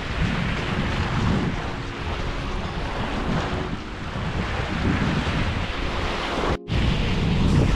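Strong wind buffeting the microphone over the sound of lake waves washing on the shore. The sound drops out for an instant about six and a half seconds in.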